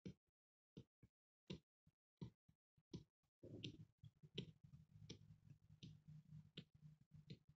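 Faint human heartbeat recorded through a phone's microphone with a heartbeat-listener app: paired lub-dub thumps at a steady rate of about 80 beats a minute. About halfway in, a steady low hum with some rustling noise joins under the beats.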